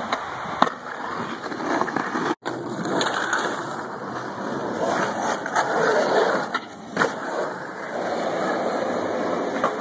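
Skateboard wheels rolling over concrete, a steady rolling rumble with several sharp clacks from the board. The sound cuts out for an instant about two and a half seconds in.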